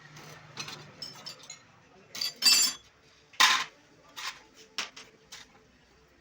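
Metal tools and small metal parts clinking and knocking in a run of separate sharp strokes. The loudest are a ringing metallic clink about two and a half seconds in and a sharp knock about a second later.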